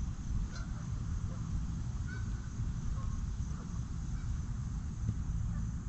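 Steady low wind rumble on the microphone, with a few faint, short bird calls in the distance.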